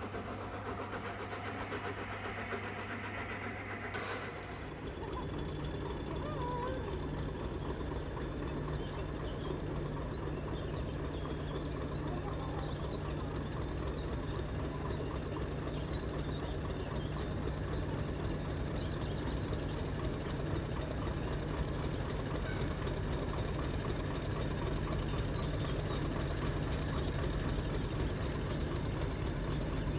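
An engine running steadily with a low hum. About four seconds in there is a sharp click, and the engine's note steps up to a slightly higher, louder hum that then holds steady.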